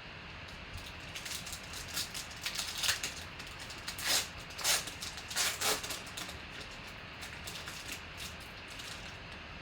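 Rustling and crinkling of packaging as a sealed trading-card box is opened, with a cluster of louder rustles in the middle.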